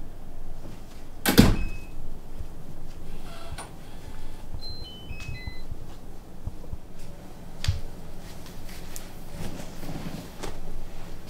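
An apartment front door shutting with a loud knock about a second in, followed by a digital door lock's short run of electronic beeps falling in pitch as it locks. Another knock comes near the middle.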